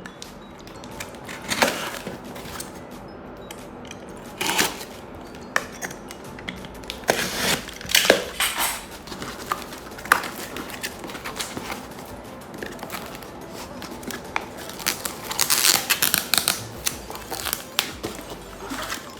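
Hands unpacking boxed packaging: irregular knocks, scrapes and rustling, with a few sharper clacks from the wooden case, in clusters a few seconds apart.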